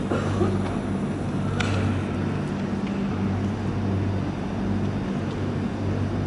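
Steady background of an indoor ice rink hall: a low, even hum under a soft hiss, with one faint click about a second and a half in.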